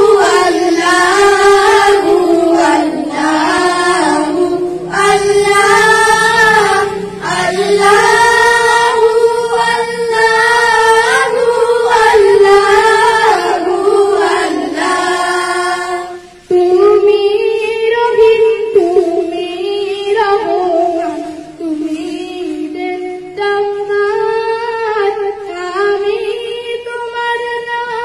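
Children singing a Bengali Islamic ghazal (gojol) unaccompanied through a handheld microphone, a girl's voice leading the slow melody, with a short break about halfway.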